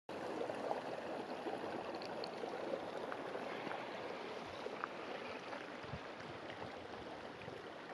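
Running water, like a small stream: a steady rush with faint little ticks through it.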